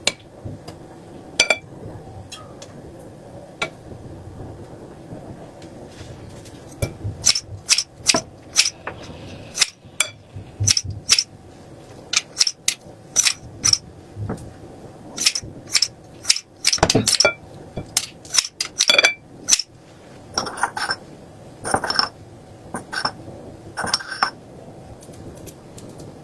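Kitchen utensils and dishes clinking and tapping, an irregular run of sharp clinks with brief ringing that starts several seconds in and thins out near the end.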